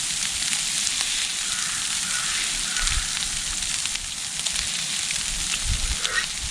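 Sleet falling steadily on a hammock tarp: an even, continuous hiss of ice pellets striking the fabric.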